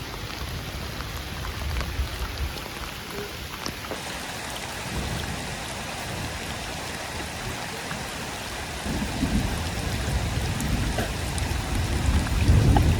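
Steady heavy rain with many separate drops tapping on a surface, under a low rumble of thunder that rises again toward the end.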